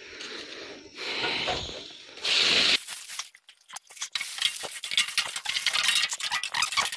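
Dry leaves and twigs rustling and crackling as they are swept by hand off a bulldozer's steel deck. Soft swishes come first, then dense crackling from about four seconds in.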